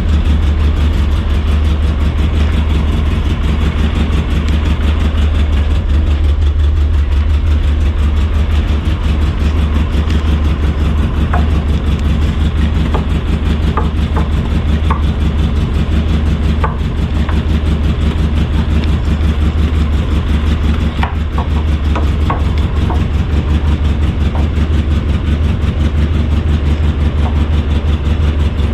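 An engine running steadily at idle, with a few faint short clicks partway through.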